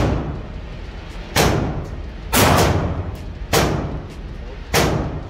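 Semi-automatic pistol fed from a drum magazine firing about five shots, roughly a second apart, each shot echoing in an indoor range. The drum feeds every round without a stoppage.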